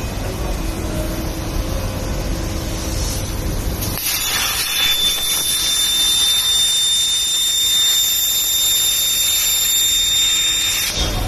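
Hypertherm HPR260XD plasma torch cutting steel plate on a CNC table: a loud hiss with a steady high-pitched whine, starting about four seconds in and cutting off just before the end. Before it, a low machinery rumble.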